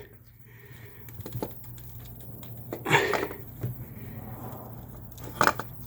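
Light clicks, taps and rustling as a replacement starter motor and its wiring are handled and fitted into place under a car, with one brief louder rustle about three seconds in and a few sharper clicks near the end.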